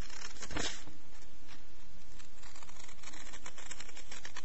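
Scissors cutting paper: a few short snips with paper rustling, the loudest snip about half a second in, over a steady hiss.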